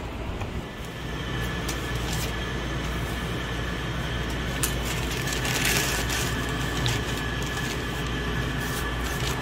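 Steady low mechanical hum with a faint, thin high whine, and a few scattered clicks.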